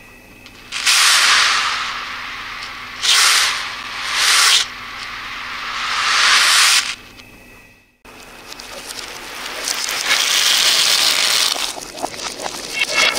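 Many small metal beads rattling and rolling across a hard tabletop, a dense high rattle that comes in waves, with two short bursts in the middle, and cuts off sharply about seven seconds in. After a brief gap, more beads start rattling again and build up.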